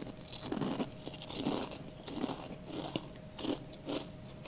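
Chewing a mouthful of Zapp's Voodoo kettle-style potato chips, one crunch about every half second.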